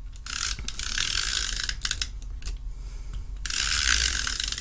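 Stampin' Up! Snail adhesive tape runner laying adhesive onto a strip of patterned paper, its mechanism running in two strokes about two seconds apart, with a few short clicks between them.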